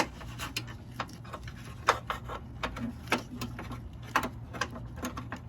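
Irregular light clicks and knocks as a Honda CRX door latch assembly, its metal linkage rods attached, is worked down into the door shell and knocks against the inside of the door.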